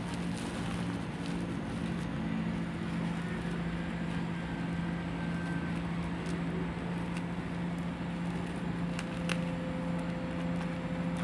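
Bubble-wrap and plastic wrapping crinkling and crackling in scattered clicks as a parcel is unwrapped by hand, over a steady low hum.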